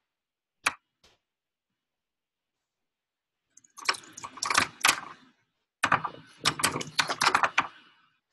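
Computer keyboard typing: a single keystroke about two-thirds of a second in, a pause of a few seconds, then two quick runs of keystrokes.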